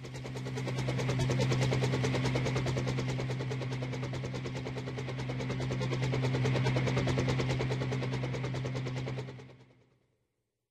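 Small RC helicopter's electric motors and plastic gears running, a steady hum with a fast, even clatter; it spins up, holds for about nine seconds, then winds down near the end.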